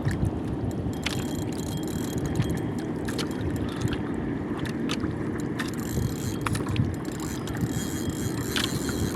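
Wind buffeting the microphone out on the water, a steady low rumble, with scattered small clicks.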